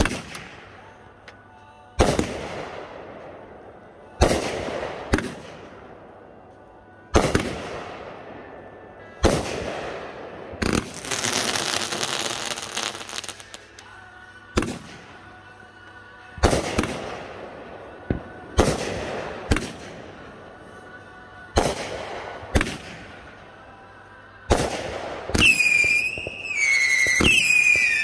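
Consumer aerial fireworks going off in a string of about fifteen sharp bangs, one every second or two, each dying away in a rumbling tail. About eleven seconds in comes a few seconds of dense crackling. Near the end, whistling shells add shrill wavering whistles over the bangs.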